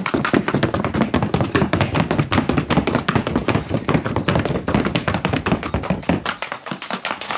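Hooves of a Colombian Paso Fino mare striking a hard paved floor in the breed's rapid, even four-beat gait: a fast run of sharp taps. The beats turn lighter near the end as the horse moves off.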